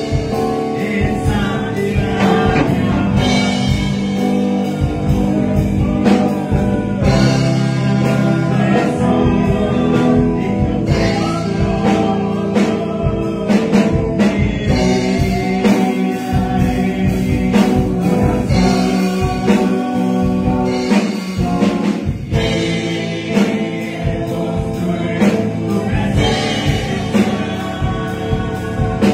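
A man singing a Spanish-language worship song into a microphone over instrumental backing with a steady drum beat.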